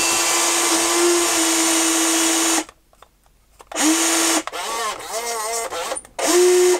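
Electric motors of an FPS EX-16M (WLtoys 16800) RC excavator whining steadily as the arm is raised by remote control. The whine stops for about a second, then comes back in short runs, its pitch wavering as the motors are driven at varying speed.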